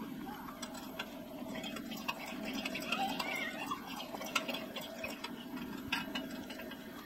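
Small clicks and metallic taps as hands work the brass valve and fittings of a red liquid-fuel camp-stove tank, busiest in the middle, over a steady low rushing sound.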